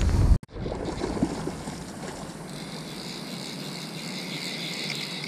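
A loud low rumble on the microphone cuts off suddenly about half a second in. Then comes the steady rush of flowing river water, with a higher steady hiss joining about halfway through.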